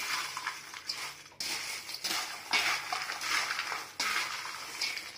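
Dry fried sago and potato-shred chivda being stirred with a spoon in a stainless steel bowl: a dry rustling and scraping that comes in several stretches with abrupt breaks.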